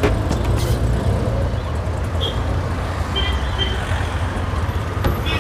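Auto-rickshaw running in traffic, heard from inside the open cab: a steady low engine rumble under road noise, with a few short high beeps about two and three seconds in.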